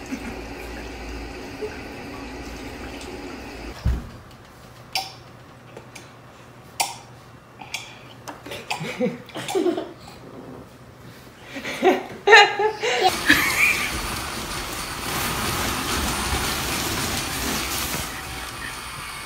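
Scattered short knocks and brief voice sounds, then, about two-thirds of the way through, a steady rushing hiss sets in: the battery blower fan that keeps an inflatable T-rex costume inflated.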